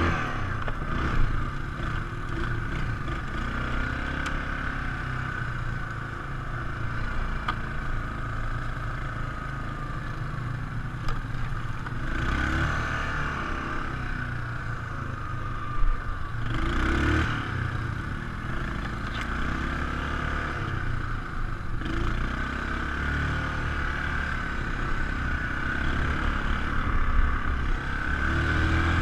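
ATV engine running under way, its pitch rising and falling with the throttle, over a low rumble and rattle from the machine. Sharp knocks stand out about a second in and just past the middle.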